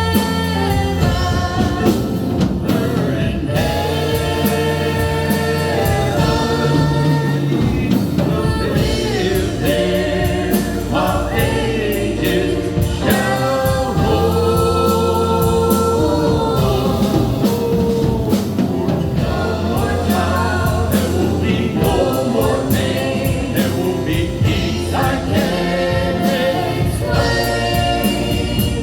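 Gospel vocal group singing in harmony with band accompaniment and a steady drum beat.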